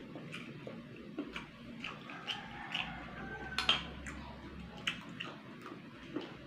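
Close-up eating sounds: a run of short clicks and wet smacks as snail meat is picked from its shell with a toothpick and chewed, with one sharper smack about halfway through.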